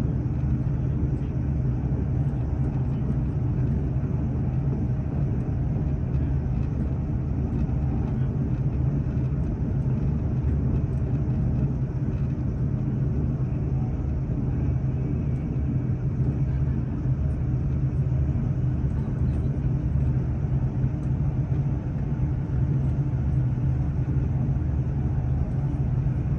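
Steady low rumble of a moving train, heard from inside the carriage.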